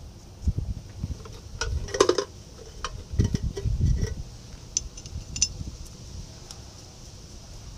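Steel nuts clinking and knocking as they are handled and threaded by hand onto the axle flange studs of a 1963 Chevy C20's heavy-duty rear hub. Scattered sharp clinks, the loudest about two seconds in, with a few dull knocks a second or so later.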